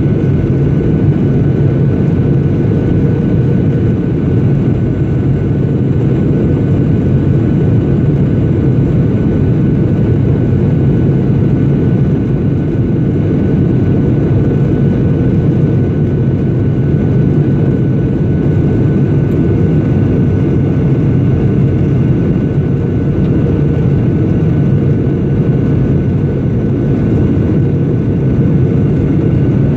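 Jet airliner cabin noise beside the wing: a steady, even rumble of turbofan engine and airflow, with a faint steady high tone above it.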